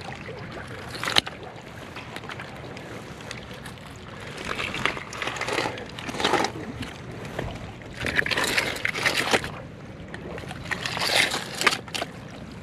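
Gloved hands rummaging through oyster shells and wet mud: loose shells clattering and scraping in three spells of digging, with one sharp clack about a second in.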